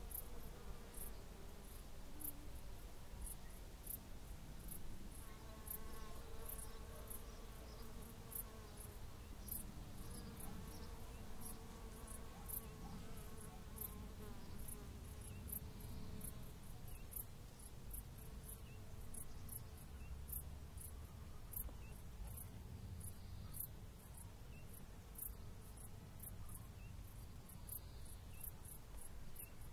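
A cricket chirping steadily, short high-pitched chirps about twice a second, over a low rumble of wind.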